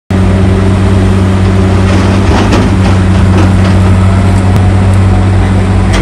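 Heavy diesel engines of a dump truck and bulldozers running steadily on an earth-filling site.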